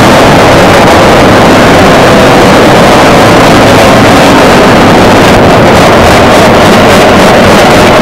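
Twin Allison V-12 engines of a P-38 Lightning running on the ground, a loud steady drone that overloads the recording.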